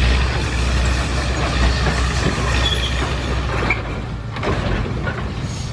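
Heavy earthmoving machine's diesel engine running steadily, with scattered metallic squeaks and clatter; the low engine drone thins about four seconds in.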